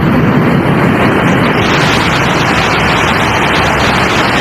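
Water running steadily over a toy being washed, a loud even rush.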